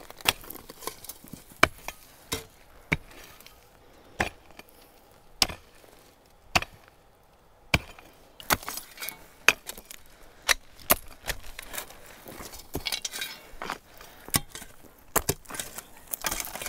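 Pickaxe and shovel digging around a tree stump in rocky dirt: sharp, irregular strikes about once a second as the pick bites into soil, roots and stones, with the shovel scraping in between.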